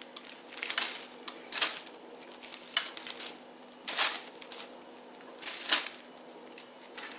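Clear plastic roasting bag crinkling and rustling in several short bursts as raw sausages are handled and dropped into it.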